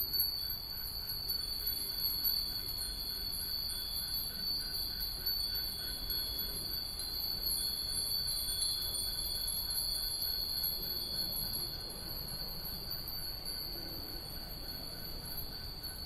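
Hundreds of Japanese wind bells (fūrin) ringing together in a dense, continuous high tinkling, growing a little softer in the last few seconds.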